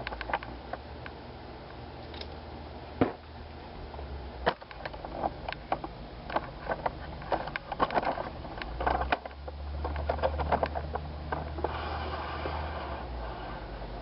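Hard plastic playset pieces being handled: scattered clicks, knocks and scraping, busiest in the middle.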